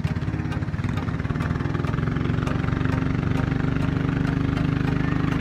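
Engine of a motorized bangka (wooden river boat) running under way, with a fast, even pulse; it gets a little louder about two seconds in.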